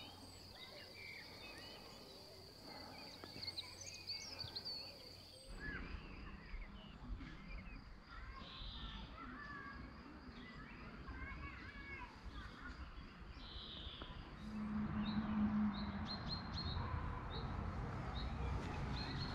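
Wild songbirds chirping and singing over outdoor background noise, which grows louder in the last few seconds.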